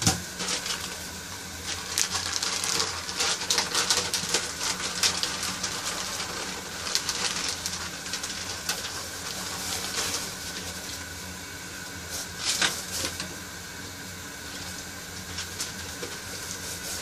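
Clear plastic bag of dried soup ingredients crinkling and rustling as it is handled and emptied, busiest over the first dozen seconds, with a sharp knock right at the start. A steady low hum runs underneath.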